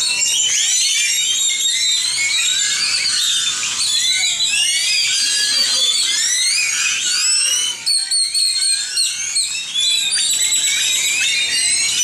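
A large gathering of birds calling all at once at sunset: a loud, dense evening chorus of many overlapping high chirps and whistles that slide up and down, with no let-up.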